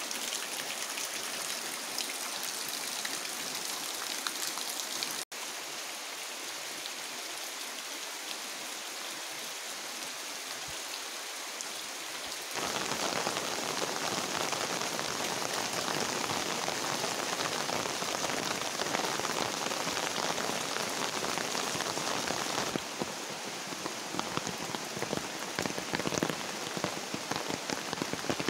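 Steady rain falling, briefly cutting out about five seconds in. From about twelve seconds in to about twenty-three, the rain is louder and fuller, falling on a tiled roof.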